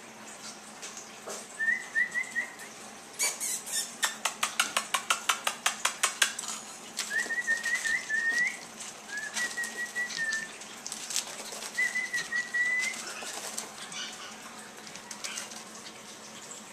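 Puppies whining in short, thin, wavering high whimpers, several times. About four seconds in there is a rapid run of sharp clicks, roughly nine a second, lasting a couple of seconds.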